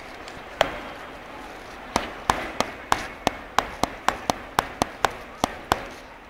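A single sharp tap, then from about two seconds in a quick, uneven run of about fourteen sharp taps, roughly three or four a second, over a steady low hum.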